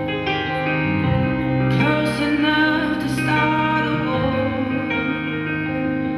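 Music: slow, sustained instrumental chords, with a singing voice coming in about two seconds in.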